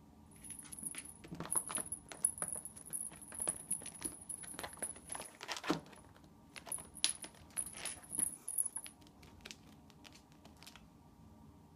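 A small jingle bell in a cat toy tinkles on and off as a kitten bats at it and plays, with light clicks and scrabbling of claws on tile and denim. The jingling stops about nine seconds in, and the clicks die away soon after.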